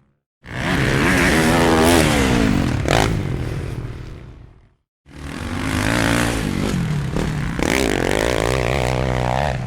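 Off-road motorcycle engines revving hard, their pitch climbing and dropping, in two stretches split by a brief silence about halfway. The first stretch fades away; the second ends on a long rising rev.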